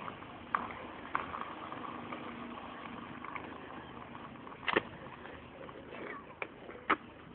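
Outdoor ambience of a busy paved square, with a faint steady hum in the first few seconds and several sharp clacks, the loudest a little under five seconds in and another near the end.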